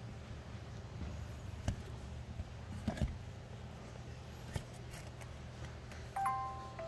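Light clicks and taps of a printed circuit board being handled, a few scattered knocks over a steady low hum. Near the end a short pitched tone sounds, stepping down in pitch.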